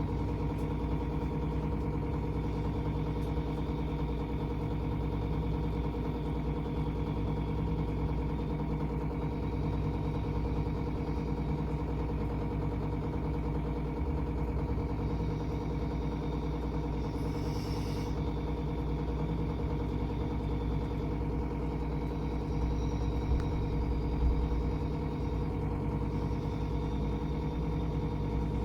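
A steady machine hum made of several constant tones, unchanging throughout, with a brief hiss about two-thirds of the way in.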